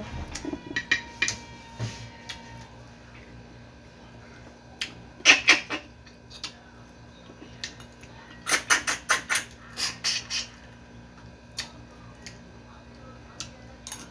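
Close-up eating sounds of a person chewing fish and rice: short sharp mouth clicks and smacks, in a short bunch about five seconds in and a longer run a few seconds later.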